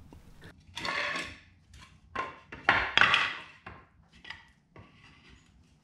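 Scrap lumber boards and blocks being set down and slid on a concrete floor: a few separate scrapes and knocks, the longest about a second in and around three seconds in.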